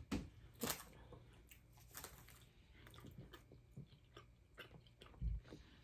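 Faint chewing of a soft chocolate-and-nougat candy bar, with a few small scattered clicks and a low bump near the end.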